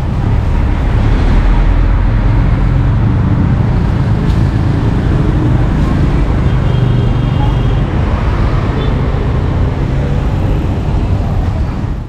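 Steady rumble of passing road traffic, cutting off abruptly at the very end.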